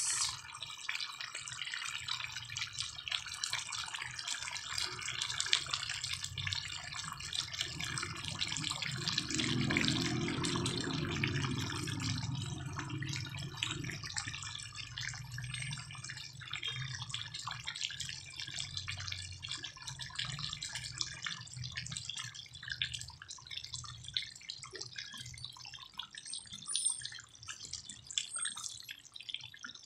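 Chicken afritada stew simmering in a pan, the sauce bubbling in a dense crackle of small pops as it nears done, over a steady low hum.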